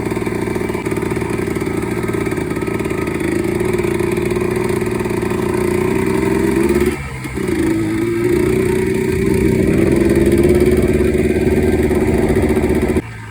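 Yamaha two-stroke single-cylinder off-road engine being ridden under throttle. Its pitch climbs and holds, dips briefly when the throttle is chopped about halfway through, picks up again, and drops off sharply just before the end.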